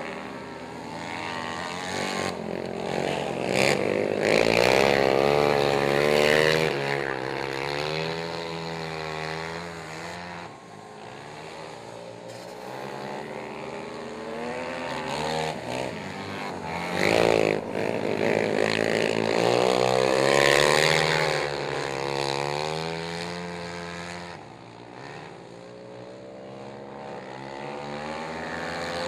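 Racing quad ATV engines revving, their pitch rising and falling as the riders throttle through the turns. The engines grow louder in two stretches, about four seconds in and again around eighteen seconds.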